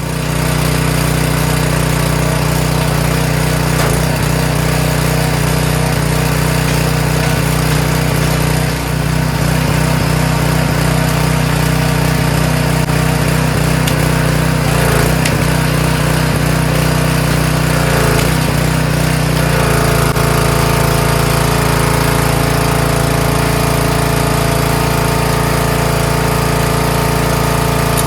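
Gas pressure washer's small engine running steadily. Its note shifts about two-thirds of the way through.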